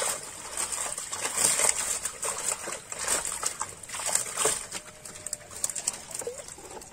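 A keep net of live tilapia being hauled up out of the water: irregular splashes, drips and sharp knocks as the fish flap in the mesh against the raft.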